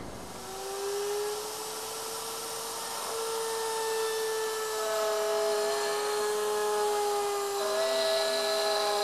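Table-mounted router switched on just after the start, then running with a steady whine while its bearing-guided flush-trim bit cuts walnut along an acrylic template.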